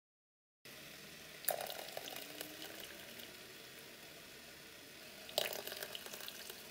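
Thick pumpkin-and-apple puree pouring from a plastic blender jug into a stainless steel pot, a soft wet pouring sound. Two brief sharper sounds stand out, about a second and a half in and again near the end.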